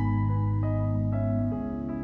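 Background music: soft piano-like keyboard notes over sustained low chords, with the bass changing about three quarters of the way through.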